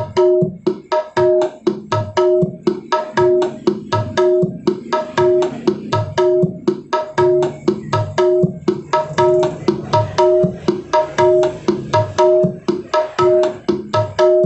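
Music played through a homemade 8-inch speaker cabinet with a round horn tweeter during a sound test. The track is led by drum strokes at a steady beat, with a short pitched figure repeating over it.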